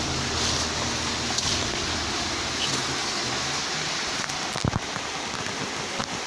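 Steady rush of flowing stream water, with a few brief knocks about two-thirds of the way through.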